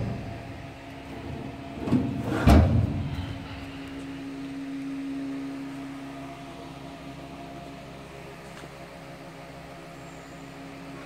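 Large steel cabinet drawer sliding shut on its runners and closing with a bang about two and a half seconds in, followed by a steady low hum.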